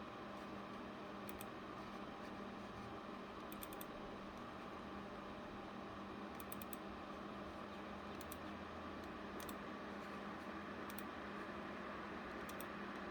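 Steady hum of a running GPU mining rig's fans and server power supply, with light computer clicks, often two or three close together, every second or two.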